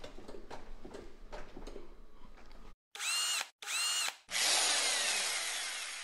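Two quick power-drill revs, each a short whine that bends up and back down, followed by a louder hissing rush that fades away over about two seconds: a logo intro sound effect. Before them come only faint clicks.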